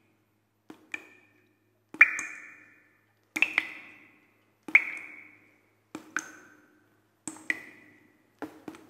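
Intro sound effect of sharp pinging strikes, about one every 1.3 seconds and many of them doubled, each with a short ringing tone that dies away into silence.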